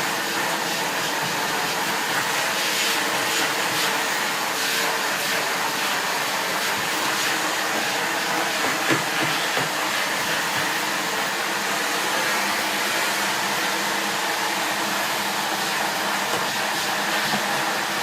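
SEBO Felix bagged upright vacuum cleaner running steadily on its low 300-watt suction setting, drawing air through a dusting brush on its hose. One brief knock about halfway through.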